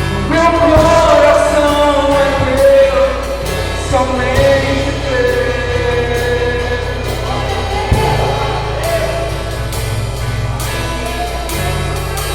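Live worship music: a male voice singing long, sliding held notes over acoustic guitar and a drum kit keeping time with regular cymbal and drum hits.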